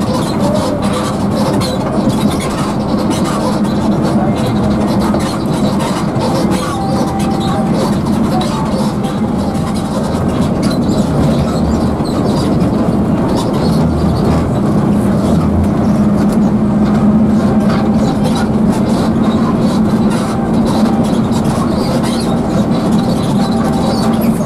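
Coach bus running at highway speed, heard inside the cabin: steady engine drone with a low hum and road noise.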